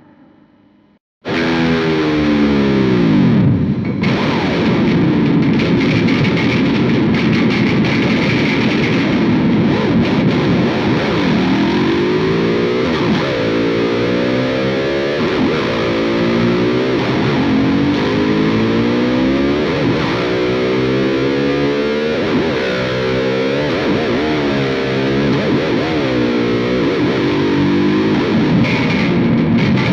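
Charvel Wildcart 8 electric guitar played through heavy distortion, starting about a second in after a brief silence. It plays continuous lines with repeated swooping bends in pitch.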